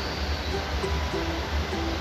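Background music: a light tune of short plucked notes over a steady low bass.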